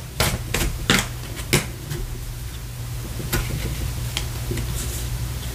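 Tarot cards being handled and laid out: a few sharp clicks and snaps of card stock, about six scattered through the first four and a half seconds, over a steady low hum.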